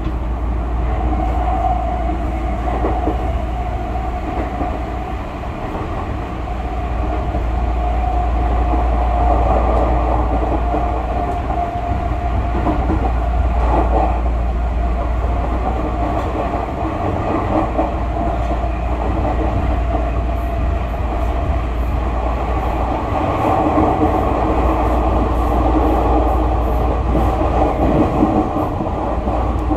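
Interior running sound of a Tokyu 5000-series electric train: a steady low rumble of wheels and running gear with a steady tone from the drive, and faint rail clicks in the latter part.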